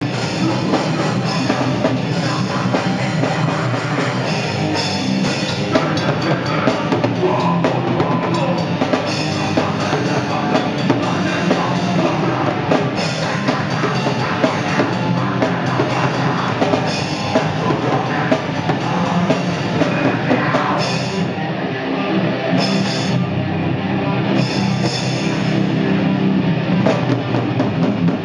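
Heavy metal band playing live: electric guitars, bass and a drum kit, loud and dense throughout, heard from right beside the drums.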